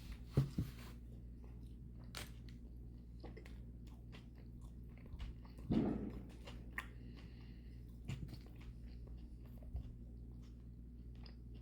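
Close-miked chewing of a mouthful of beef and noodles: wet mouth clicks and smacks, a few louder ones near the start and about halfway, over a steady low hum.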